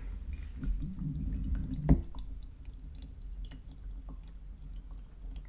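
AeroPress plunger pressed slowly down, forcing brewed coffee through the paper filter so it trickles and drips into the glass server below. There is a soft knock about two seconds in.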